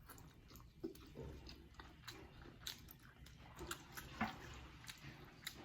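Quiet chewing and mouth sounds of a person eating, with scattered small clicks and smacks every second or so.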